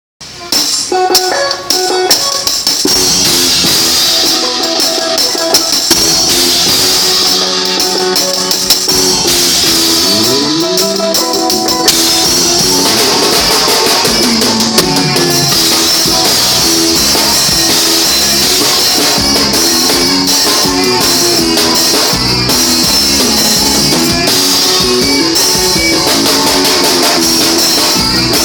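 Forró band playing live at a soundcheck, with drum kit, guitar and melody instruments. A sparser opening with a sliding pitch bend gives way to the full band, with more bass, about twelve seconds in.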